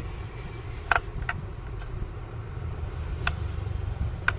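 A screwdriver tightening the terminal screw on an electric iron's cord connection: four small sharp clicks, two close together about a second in and two more near the end, over a steady low background hum.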